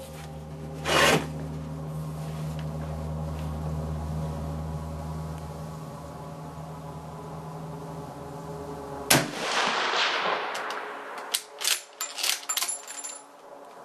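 Mosin-Nagant bolt-action rifle firing a single 7.62×54R round about nine seconds in, the shot ringing on for a second or so, followed by a quick series of metallic clacks as the bolt is worked and the spent case ejected. A sharp clack about a second in.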